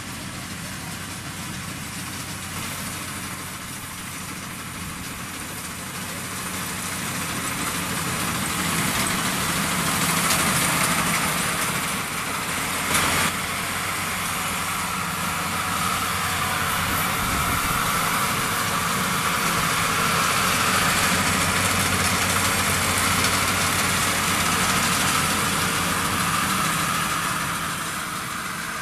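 Combine harvester engine running steadily. It grows louder about a quarter of the way through and stays louder, with one brief knock about halfway through.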